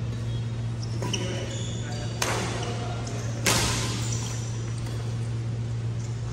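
Badminton rackets striking a shuttlecock twice, about a second and a half apart, the second hit the louder, with short high squeaks of shoes on the wooden court, over a steady low hum.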